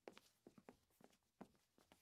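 Faint footsteps, a few short irregular steps each second.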